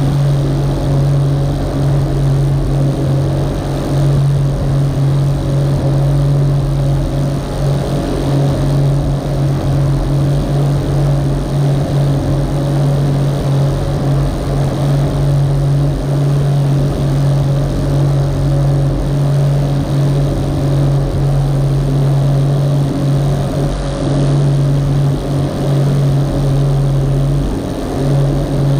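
Rigid inflatable boat's engine running steadily at cruising speed as a constant low drone, with water rushing along the hull.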